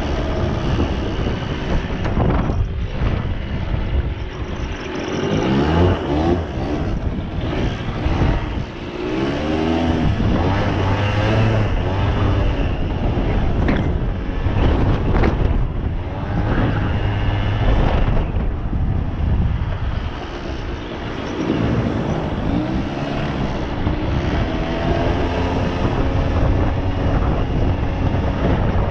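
Suzuki LT80 ATV's small two-stroke single-cylinder engine running, revving up and dropping back several times as it is ridden.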